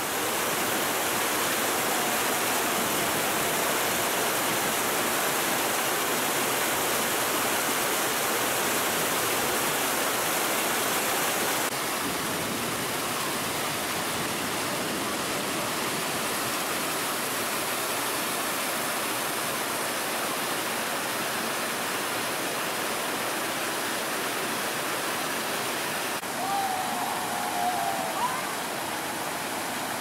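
River rapids and small waterfalls rushing over rock: a steady, even rush of water that drops slightly in level about twelve seconds in.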